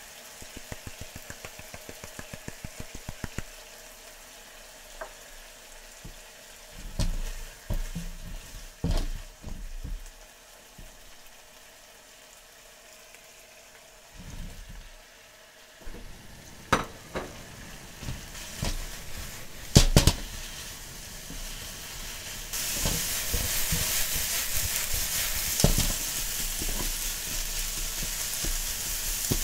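Pepper mill grinding over a frying pan, clicking about six times a second for a few seconds. Then a spatula knocking and scraping in a nonstick frying pan as chicken and sliced white leek are stir-fried, with the sizzling growing louder near the end.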